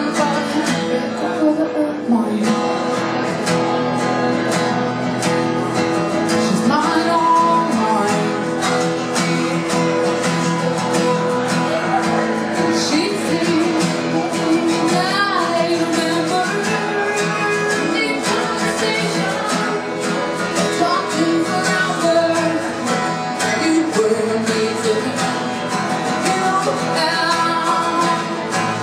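A woman singing while strumming an acoustic guitar in a steady rhythm.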